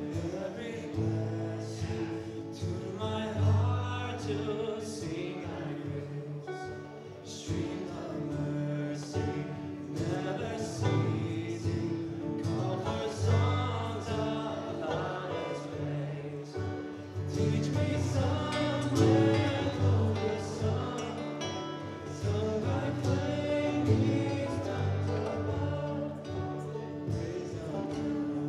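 A small live acoustic band: several men singing together over guitars and banjo.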